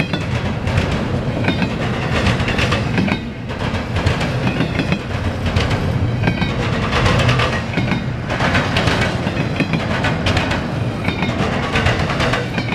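Double-stack intermodal freight train of container-laden well cars rolling past: a continuous rumble of steel wheels on rail, with frequent clicks and clanks as the wheels pass over rail joints.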